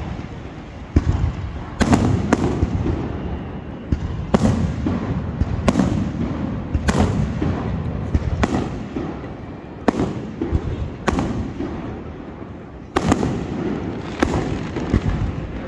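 Fireworks display: aerial shells bursting with sharp bangs about once every second or so, a dozen in all, over a continuous low rumble.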